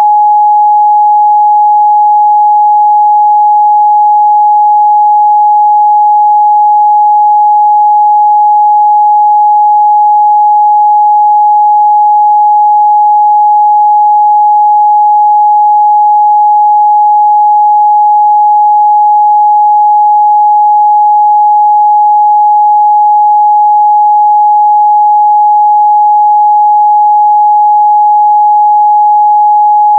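A pure 838 Hz sine-wave test tone, held steady and loud at one unchanging pitch with no other sound.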